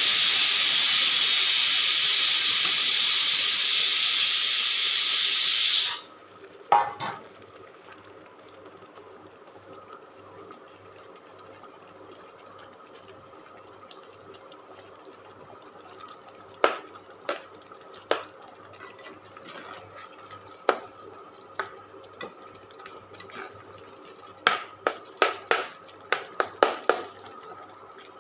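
Pressure cooker whistle: a loud, steady steam hiss that cuts off abruptly about six seconds in, a sign that the cooker of rice has come up to pressure. Then scattered taps and clinks of a spoon against the pan as the gravy is stirred, clustered near the end.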